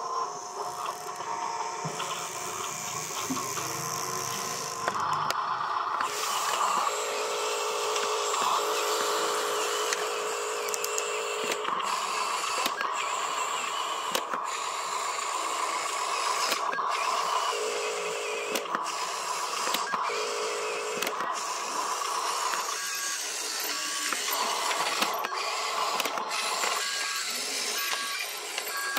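Electric motors and plastic gearboxes of a Huina radio-controlled dump truck whining as it drives and raises its tipper bed, the pitch stepping and cutting in and out every few seconds with the throttle and lift commands.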